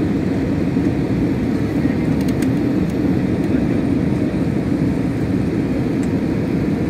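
Steady, even cabin noise of an airliner in flight, the engines and rushing airflow heard from inside the passenger cabin.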